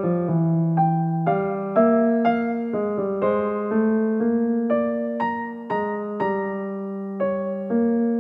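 Background piano music: a gentle melody of single struck notes, about two a second, each ringing and fading.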